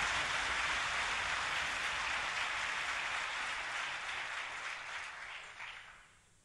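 A large audience applauding, the clapping thinning into a few separate claps and dying away near the end.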